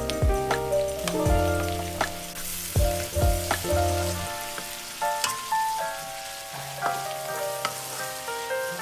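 Meat and onions sizzling in a frying pan, a steady hiss, under instrumental background music: a melody of struck notes over a low bass line that drops out about four seconds in.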